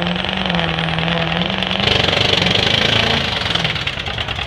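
Diesel pickup truck engine running at full throttle while pulling a weight sled, a heavy steady engine note that grows louder about two seconds in as the truck pulls hard.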